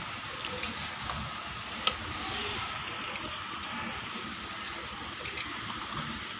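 A few light clicks of handling, the sharpest about two seconds in, over a steady low hiss.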